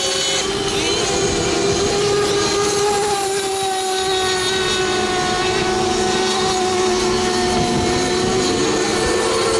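Several FSR-O 7.5 cc radio-controlled racing model boats running flat out, their small two-stroke engines making a steady, overlapping high-pitched whine whose pitch drifts slightly as the boats round the course.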